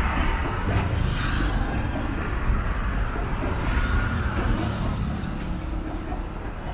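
Container freight train rolling past on the rails, the wagons' wheels making a steady rumble.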